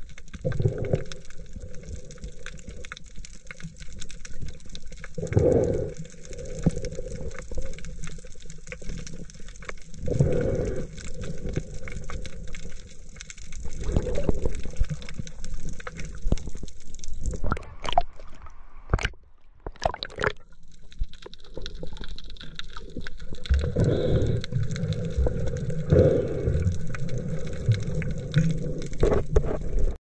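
Water sloshing and gurgling as picked up by a camera underwater, muffled, with heavier surges every few seconds. A few sharp short knocks come a little past halfway.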